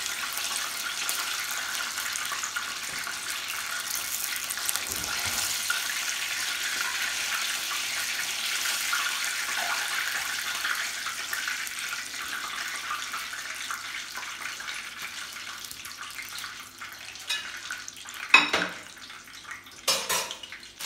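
Hot oil in a pot frying chicken, a steady hissing and crackling that slowly dies down over the second half as the pieces are lifted out. Two sharp knocks near the end are the loudest sounds.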